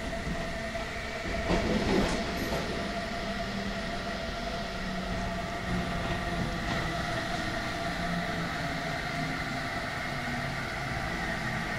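Train running noise inside a passenger coach behind a DB Class 101 electric locomotive, with a steady whine from its Adtranz Micas-S GTO traction inverter. A few clicks from the wheels over rail joints or points come about two seconds in.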